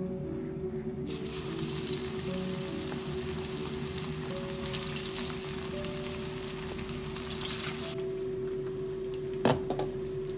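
Pieces of tempeh dropped into hot oil in a frying pan, the oil sizzling loudly from about a second in until it cuts off abruptly near 8 seconds. Soft background music runs underneath, and near the end there is one sharp clink.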